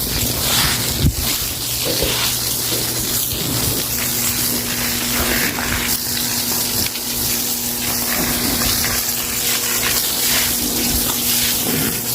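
Water gushing and splashing with a steady hiss while a floor is washed with a broom and water. A faint steady hum joins about four seconds in and stops near the end.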